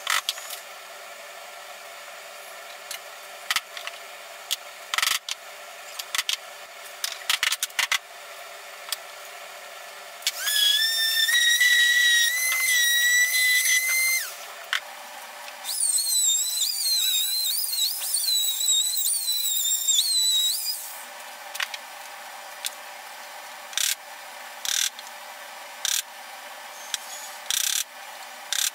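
A chisel struck with a rubber mallet: sharp knocks at irregular intervals. In the middle a small handheld power tool runs twice with a high whine, for about four and then about five seconds.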